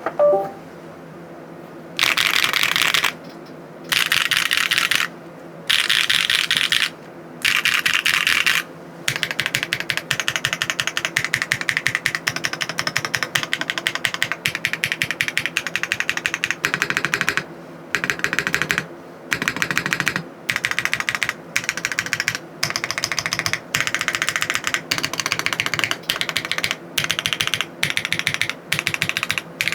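Typing on a Polygon 7 keyboard fitted with HMX Serene Green linear switches, which have a POM bottom housing and a modified UPE stem. The keys make a bassy, full clack in rapid runs: bursts of about a second with short pauses, and an unbroken stretch of fast typing in the middle.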